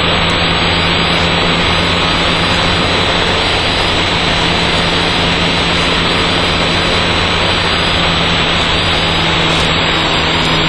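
Steady in-flight drone of a homebuilt Dyke Delta's Mazda rotary engine and propeller with airflow noise. It is picked up through the intercom headset microphone, which gives it a muffled, band-limited sound with a constant low hum.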